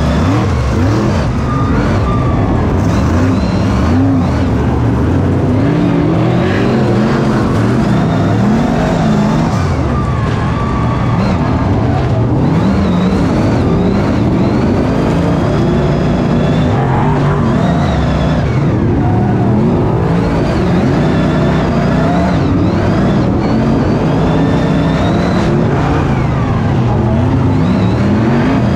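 Several BriSCA F1 stock cars' V8 engines racing together, their pitch rising and falling over and over as they accelerate and lift.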